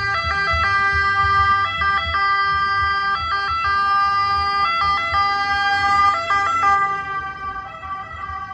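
Italian ambulance siren sounding as the ambulance approaches and passes, with engine and road rumble underneath. The siren holds a steady tone that jumps briefly in pitch about every second and a half, and it fades near the end as the ambulance drives away.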